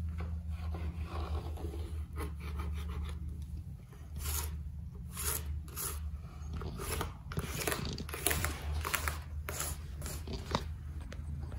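Pencil scratching on plywood as it traces around the base of a car battery, in a string of short strokes that come thicker in the second half, over a steady low hum.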